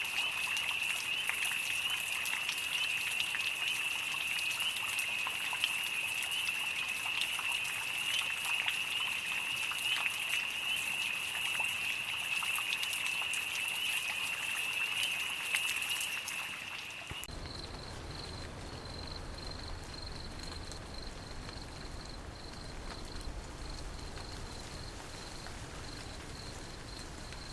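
Night rain falling with a continuous, steady trill of crickets. About two-thirds of the way through, the ambience changes abruptly to a higher, evenly pulsing cricket chirp over a lower, softer rain hiss.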